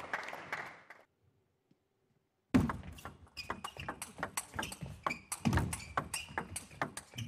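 Table tennis rally: the celluloid ball clicking sharply off the rackets and the table in quick, irregular succession, with a few heavier thumps around the middle. Before the rally, fading crowd noise and a short silence at an edit.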